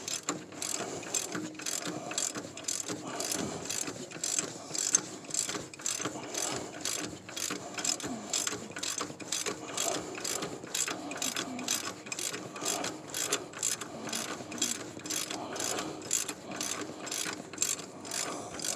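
Hand ratchet clicking steadily, a few clicks a second, as it turns the forcing screw of a harmonic balancer puller. This is the long, slow pull that draws the crankshaft damper off its snout after it has broken free.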